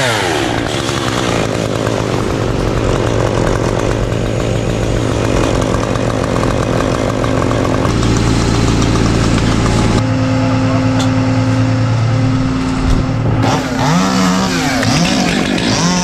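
Gas chainsaw running, mostly at a steady speed, then revved up and down several times near the end.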